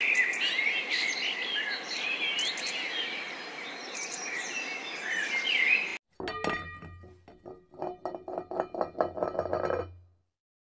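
Birds chirping and twittering over a steady background hiss, cutting off abruptly about six seconds in. A short musical intro sting follows: quick repeated notes over a low drone, fading out near the end.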